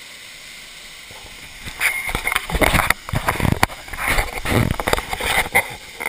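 Steady rush of a small forest waterfall. From about two seconds in, loud irregular sloshing and splashing of water close to the microphone for about four seconds.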